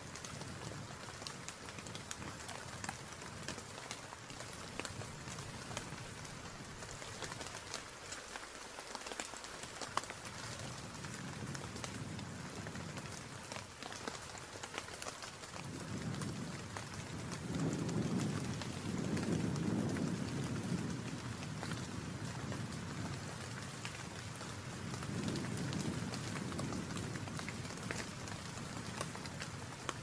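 Steady rain with a dense patter of drops. A low rumble builds about halfway through and swells again a few seconds later.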